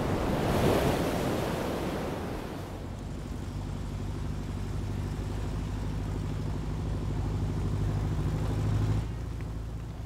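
Surf breaking and washing, fading out over the first two or three seconds. Then a dune buggy's engine runs steadily as it drives along a dirt track, growing louder until it drops away suddenly about nine seconds in, leaving a fainter engine sound.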